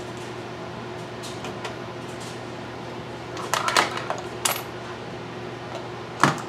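Light metallic clinks and clatter of small gear and cables being handled: a cluster of clicks a little past the middle and two sharper knocks near the end, over a steady low hum.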